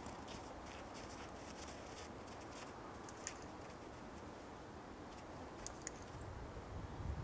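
Faint crunching footsteps of a person and a dog walking over snow for the first few seconds, then a quiet outdoor background with a few small clicks.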